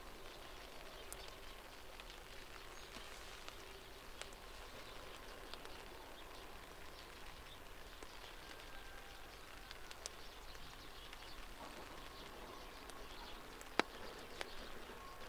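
Quiet outdoor ambience: a steady hiss scattered with small ticks and faint chirps, and one sharp click near the end.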